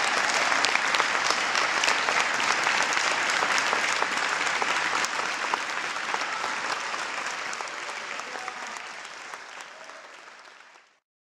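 Audience applauding, a dense patter of many hands clapping that fades gradually over the second half and then cuts off.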